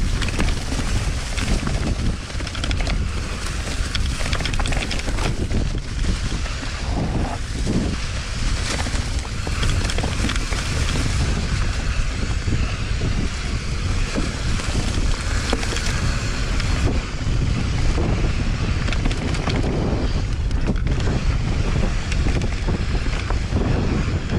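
Wind buffeting the microphone of a camera on a mountain bike during a trail ride: a loud, continuous rushing rumble with small scattered rattles.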